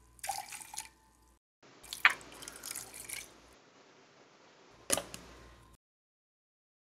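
Water poured into a stainless steel mixer-grinder jar, heard in short separate snatches, with a couple of sharp clicks of the metal jar being handled.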